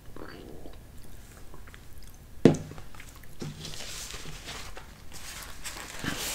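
Soft mouth sounds of eating a spoonful of yogurt, then a metal spoon set down on a paper plate with one sharp knock about two and a half seconds in. After it comes the rustle of a paper napkin being handled and wiped across the mouth.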